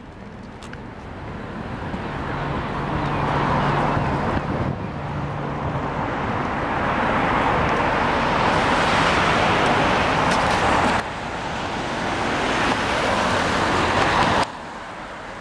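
Road traffic: the rushing noise of cars passing close by, swelling up over several seconds. It cuts off abruptly about eleven seconds in and again near the end.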